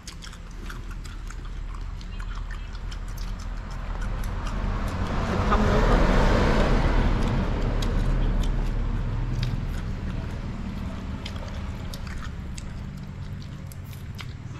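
A road vehicle passing by: a rush of engine and tyre noise that grows louder, peaks about six seconds in and fades away, over a steady low hum and a few light clicks.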